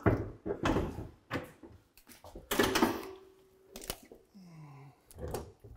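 Metal hooks on the back of a flat-screen TV knocking and scraping against a tilting wall-mount plate as the set is lifted and worked onto the mount, in a run of short clunks and scrapes, the longest about two and a half seconds in. A short low falling hum comes about four and a half seconds in.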